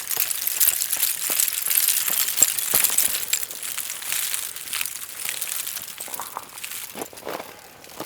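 Dense crisp crackling and tinkling of ice, with many sharp clicks, starting abruptly and easing off after about three seconds.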